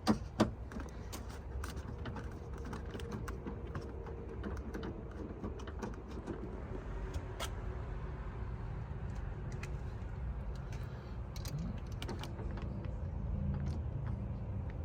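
Scattered light clicks and small metallic taps as a short bolt is worked loose inside a car door, over a steady low background hum; two sharper clicks come right at the start.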